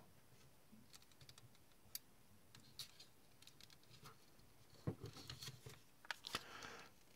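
Near silence broken by faint, scattered clicks and taps of small model-kit parts being handled, as a horn-hook coupler and its clip-on box cover plate are fitted to the flat car; the clicks are a little louder and closer together about five to six and a half seconds in.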